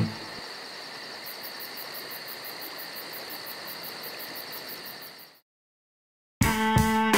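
Field ambience of insects chirping: a steady hiss with a fast, even high pulsing, about six chirps a second, that fades out about five seconds in. After a second of silence, string music with sharp plucked notes starts loudly near the end.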